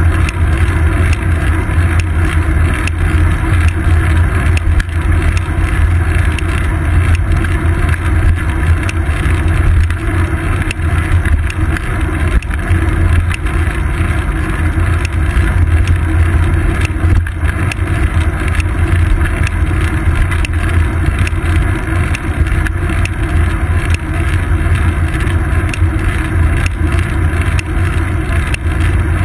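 Steady wind and road rumble from a bicycle riding on asphalt, picked up by a GoPro Hero 2 mounted on the seat post: a loud, unbroken deep drone with hiss above it.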